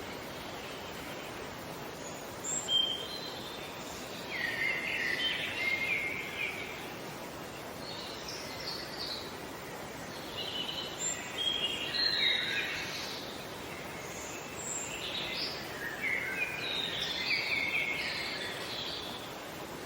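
Songbirds singing in bouts of quick chirps and short trills every few seconds, over a steady background hiss of outdoor ambience.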